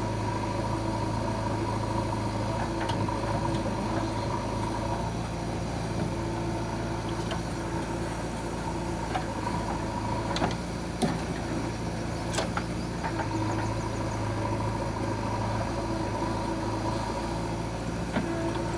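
JCB 3DX backhoe loader's diesel engine running steadily, with a few sharp knocks about two thirds of the way through.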